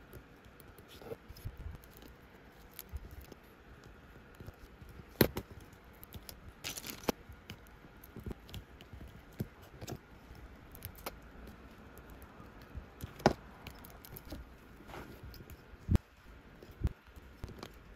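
Small hand tools and parts clicking and tapping against an iPhone X during battery-replacement work, in scattered irregular clicks with a few sharper ones. About seven seconds in there is a brief scrape.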